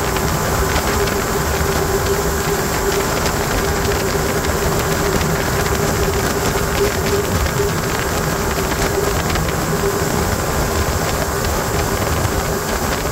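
Evinrude G2 200 HP two-stroke V6 outboard running steadily at speed under load, with a steady whine over rushing wind and water. It is on a test run after a foreign object blocking its cooling-water feed was cleared.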